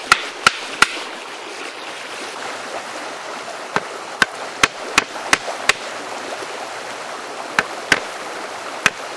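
Sharp taps of an antler chisel being struck to chip small bites off a dry incense cedar stick: three quick taps, a run of six at about three a second, then a few more near the end. A creek flows steadily underneath.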